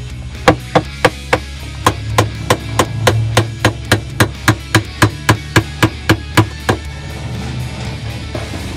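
A quick, even run of about twenty sharp metal-on-metal hammer blows, three to four a second, on a tool set against the centre hub nut of an LG WF-T7070CP top-load washer's wash tub, driving it to loosen the nut. The blows stop a little before the end.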